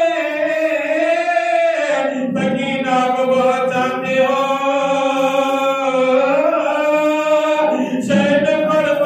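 A man chanting a devotional recitation unaccompanied, in long drawn-out melodic phrases, with short breaths about two seconds in and near the end.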